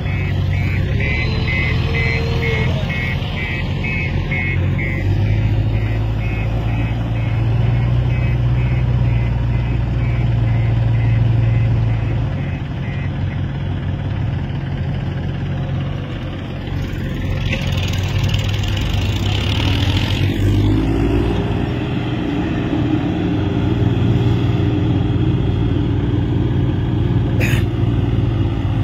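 Mahindra 275 DI tractor's diesel engine labouring under load as it hauls a trolley heaped with soil through sand and up a slope, with a JCB backhoe loader's diesel running alongside. The engine note rises about five seconds in and sags for a few seconds around the middle. A rapid series of short high chirps runs through the first dozen seconds.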